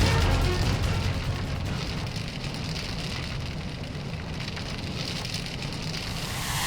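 Crackling, hissing noise over a low rumble, a volcano lava-and-fire sound effect. It eases off after the first couple of seconds and swells again near the end.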